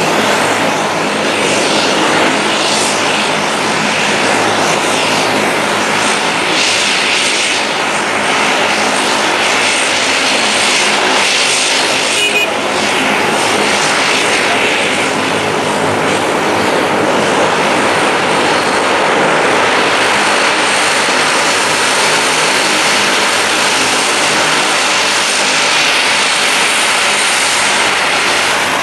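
De Havilland Canada Dash 8's twin turboprop engines running at taxi power, a steady propeller drone with a loud engine rush over it that neither builds nor fades.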